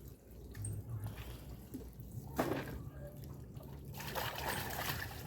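Faint trickling and splashing of water, with a single knock about two and a half seconds in.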